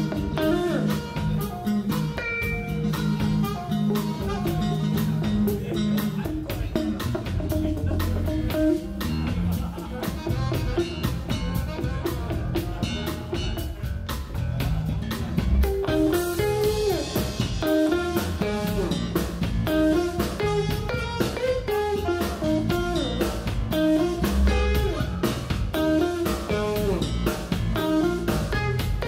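Live soul-jazz band of electric guitar, electric bass, keyboards and drum kit playing a groove. About halfway through, a cymbal crash comes in and the band settles into a repeating riff.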